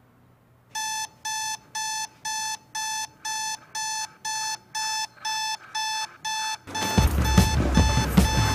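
Digital alarm clock beeping: short, evenly spaced electronic beeps at about two a second, starting about a second in. Near the end, a louder, noisy sound with thumps comes in under the beeping.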